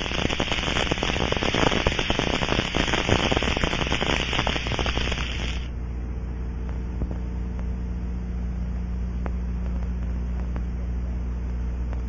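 Dense crackling over a hiss, heard through an Ultraprobe 2000 ultrasonic leak detector: residual fuel in a pressurized wet fuel cell being forced out through a leak hole. It cuts off suddenly about six seconds in, leaving a low steady hum.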